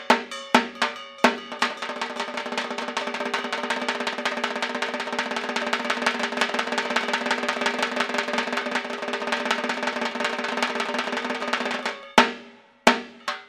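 Dhak drumming: quick separate strokes at first, then from about a second and a half in a fast continuous roll, breaking back into separate strokes near the end.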